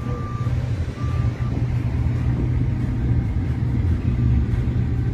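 Steady rumble of a moving vehicle's engine and tyres heard from inside the cabin, with a faint high beep twice in the first second and a half.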